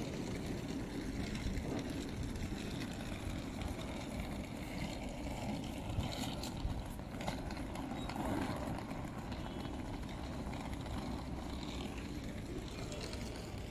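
City street ambience: a steady low rumble of traffic, with a few faint clicks and knocks about six to seven seconds in.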